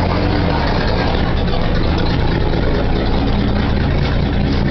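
1956 Willys pickup engine running steadily at an even speed, with no revving.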